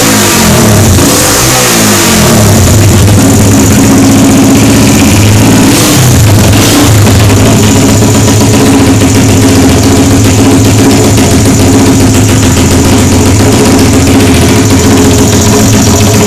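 Mini chopper motorcycle's small engine, fitted with a Keihin FCR carburettor, revved with quick throttle blips in the first two seconds and again about six seconds in, then idling steadily.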